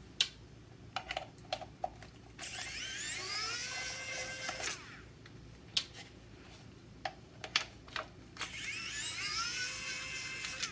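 Wowstick 1F+ cordless precision screwdriver running twice, its small motor whining up in pitch and then holding for about two seconds each time, driving screws. Sharp clicks between the runs as the tool and parts are handled.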